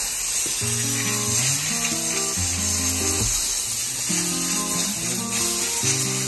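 Background music: held chords that step to a new pitch about once a second, over a steady hiss.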